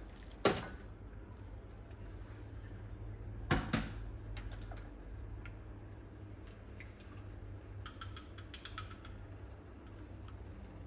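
A sharp metal knock about half a second in as drained instant noodles are tipped from a metal colander into a wok. Two more knocks come near four seconds in, and a short run of faint clicks near the end, all over a low steady hum.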